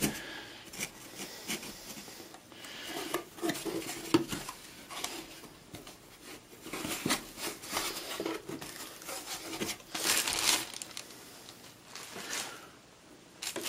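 Cardboard box being opened by hand: irregular scrapes, rustles and clicks as the flaps are pulled back, with the plastic bag inside crinkling.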